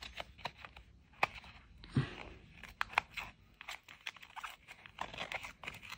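Plastic blister packaging crackling and crinkling in the hands as it is worked loose from its card backing, in irregular small clicks and crackles.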